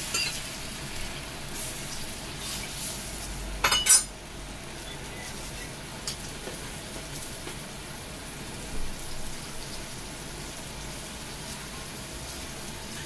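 Spaghetti and tuna frying in a stainless steel wok, a faint steady sizzle, with one sharp knock just under four seconds in.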